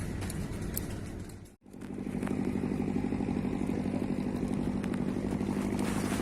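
A small engine running steadily at an even pitch. The sound drops out abruptly for a moment about one and a half seconds in, then the engine hum comes back louder.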